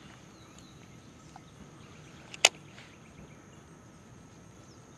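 Quiet lakeshore outdoor ambience with a faint steady high tone and a few faint bird chirps in the first second. A single sharp click about two and a half seconds in.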